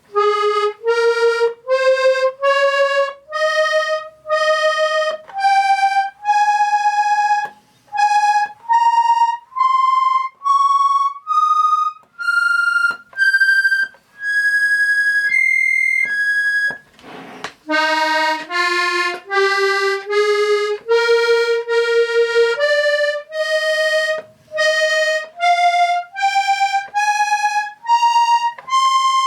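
Treble side of a Hohner Corona III three-row diatonic button accordion in B♭/E♭/A♭, played one button at a time for a tuning check. Each note is held about a second, and the notes climb in pitch up one row. A brief breathy rush of air comes just past the middle, then a second run starts lower and climbs again.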